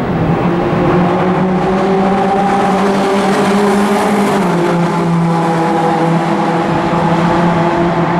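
Engines of Lotus Seven and Caterham-type sports racing cars running hard on track, a steady, loud engine note whose pitch steps down about halfway through.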